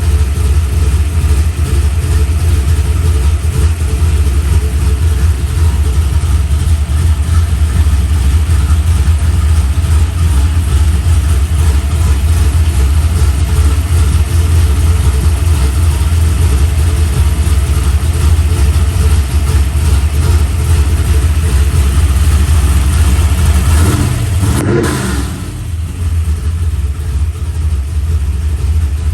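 1970 Pontiac Ram Air V pro stock V8, breathing through a single-plane dual-quad intake with two 660 Holley carburetors, idling with a loud, steady low rumble. Near the end it gives one quick throttle blip that rises and falls back to idle.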